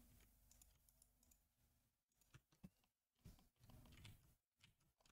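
Near silence, broken by a few faint computer keyboard clicks around the middle.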